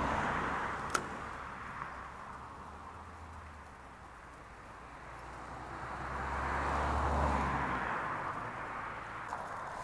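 Road traffic passing: a steady rush with a deep rumble that fades toward the middle and swells again near the end, with one sharp click about a second in.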